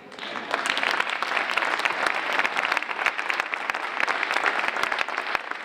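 An audience of children and adults applauding, a dense patter of many hands clapping that builds up over the first half second and then holds steady.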